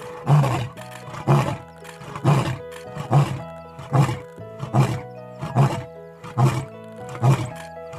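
Male lion roaring in a string of short, deep grunts, about one a second and coming slightly quicker toward the end, with background music.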